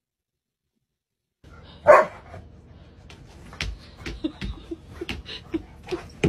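Silence, then a small dog gives one sharp bark about two seconds in, followed by a run of quick scratching scuffs and short low sounds from the dog as it digs and tugs at a pillow.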